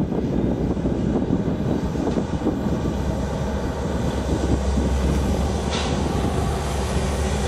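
Two EMD diesel-electric freight locomotives, an SD70M-2 and an SD75I, running under load as they haul a freight train across a trestle. A steady low engine drone grows stronger about halfway through.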